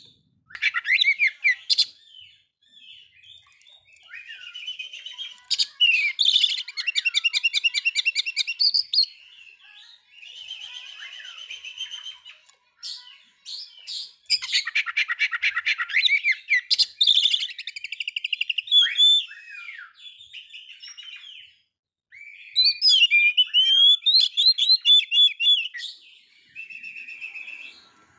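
Oriental magpie-robin singing: bursts of varied whistled phrases and fast rattling trills, with short breaks between phrases.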